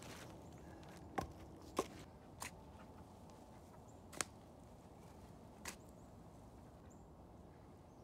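Shovel digging into a compost pile: five short, sharp knocks of the blade, spaced unevenly over several seconds.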